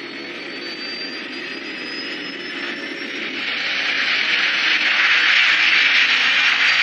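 B-2 stealth bomber's four jet engines at takeoff power during the takeoff roll. A steady rushing jet noise carries a thin whine that slowly rises in pitch, and it swells much louder from about three seconds in.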